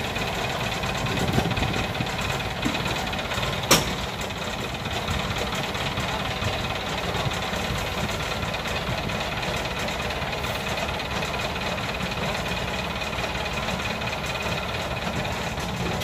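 Yanmar AW82V combine harvester's diesel engine idling steadily, with a single sharp click about four seconds in.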